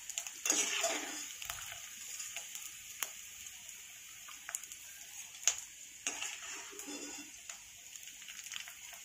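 Hot ghee sizzling in a kadhai, with clinks and scrapes of a metal spoon as the fried edible gum (dink) is lifted out. The sizzling swells briefly about half a second in and again about six seconds in.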